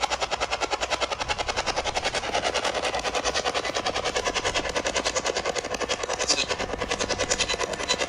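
Spirit box (ghost box radio) sweeping rapidly through radio channels, giving a steady chopped static that pulses about ten times a second.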